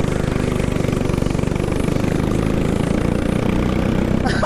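Go-kart engine running steadily under throttle during a race lap.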